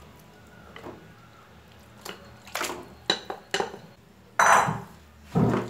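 A ceramic bowl and a slotted spatula knocking and scraping against a nonstick pot as marinated chicken pieces are tipped into the masala and stirred. It is quiet at first; from about two seconds in come sharp knocks about every half second, then a louder, longer clatter and another hit near the end.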